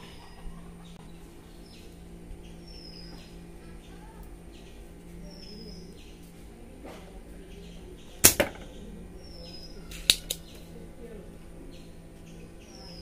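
Spring-loaded desoldering pump (solder sucker) firing twice, about two seconds apart: two sharp snaps as it pulls molten solder off a diode's pins on a circuit board. A faint steady hum runs underneath.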